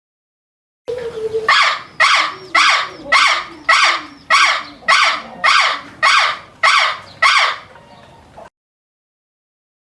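A bird giving a loud, harsh call over and over: eleven calls at an even pace of nearly two a second, starting about a second in and stopping abruptly near the end.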